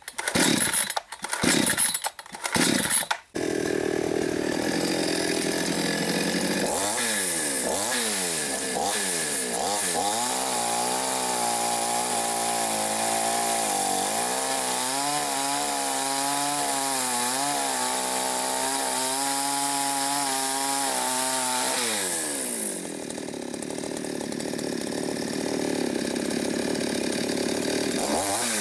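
Mil Germany two-stroke chainsaw firing in a few short bursts, then running steadily and revving up to a high, wavering note as it cuts through a dry pine log. Near the end the engine note falls and it runs on more quietly.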